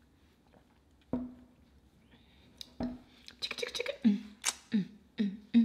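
A woman's voice making short wordless hums and mouth clicks, a few at first, then coming quickly from about halfway through.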